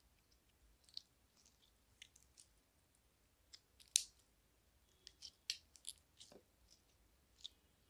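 Pearlescent slime squeezed and folded by hand, giving irregular small wet clicks and pops, the sharpest about four seconds in.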